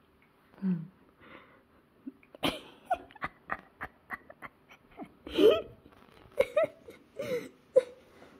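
A cat meowing several times in short calls that bend up and down, the loudest about halfway through, after a run of quick clicks.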